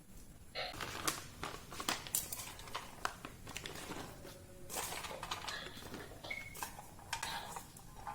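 Household items being handled: plastic rustling and crinkling, with light knocks and clatter of containers, typical of a fridge being cleared out.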